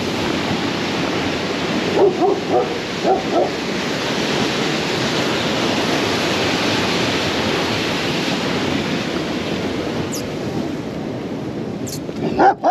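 Dogs whining and yipping in a quick cluster of short calls about two to three seconds in, and again starting near the end, over a steady loud rush of wind.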